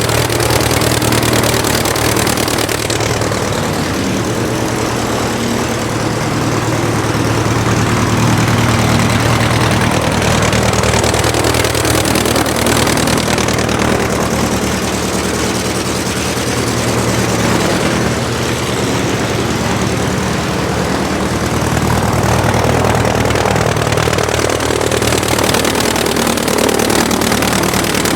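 Aircraft engine running steadily, its tone and level shifting a little every several seconds.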